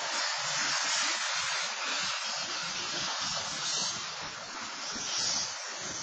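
BNSF freight train rolling past a grade crossing: a steady rushing hiss of wheels on rail with an uneven low rumble underneath, heard through a security camera's microphone.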